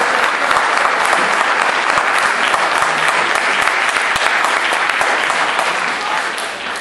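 Audience applauding: dense, steady clapping from a large crowd that begins to die away near the end.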